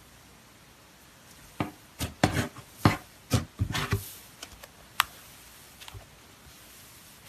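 Cloud slime being squeezed and pulled by hand, giving a run of short squishes and pops from about a second and a half in until about five seconds in.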